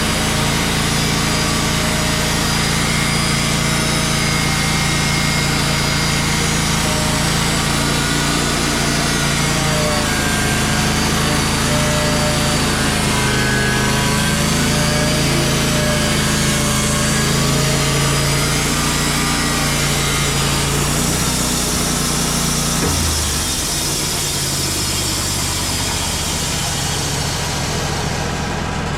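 Wood-Mizer portable band sawmill running, its engine steady while the band blade cuts through a large pine log. About three-quarters of the way through the sound drops lower and quieter as the engine settles toward idle.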